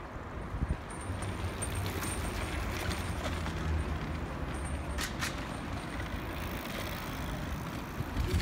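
Street traffic: a heavy road vehicle's engine running for several seconds over general road noise, with two sharp clicks about five seconds in.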